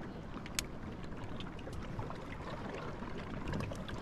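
Calm water lapping, with faint scattered clicks and pops from the surrounding ice and one sharper crack about half a second in.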